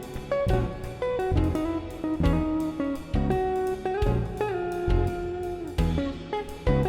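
Background music: a plucked guitar tune with a bass line and a steady beat.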